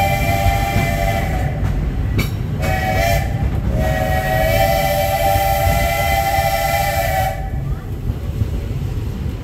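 Steam locomotive's chime whistle blowing. A held blast ends about a second and a half in, a short blast follows near three seconds, then a long blast stops about seven and a half seconds in. Underneath, the train runs with a steady low rumble.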